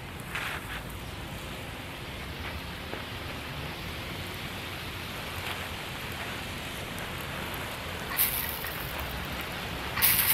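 Fine spray of water falling on potting soil and wood-chip mulch, a steady patter, watering freshly sown seed. About eight seconds in and again at the very end there is a short, louder hiss.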